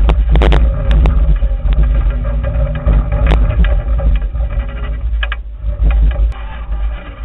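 Loud, steady low rumble of wind buffeting the microphone of an airborne camera, with a few sharp knocks and clicks, most of them in the first second.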